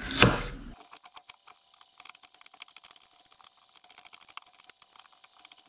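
Kitchen knife chopping carrots on a plastic cutting board: one loud knock near the start, then a long, fast run of quiet, sharp taps.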